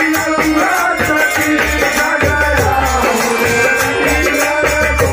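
Live Bhojpuri Holi folk song (phagua): male voices singing over a harmonium, with a dholak drum beating and small hand cymbals jingling.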